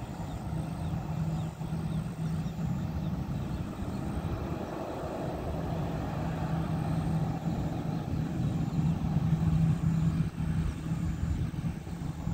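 Twin-engine jet airliner's engines running at low power as it rolls slowly along the runway after landing: a steady low hum over a continuous rumble, growing somewhat louder near the end.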